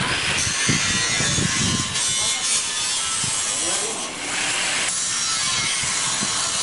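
Handheld power tool cutting corrugated sheet-metal roofing, a steady grinding noise that runs on without a break.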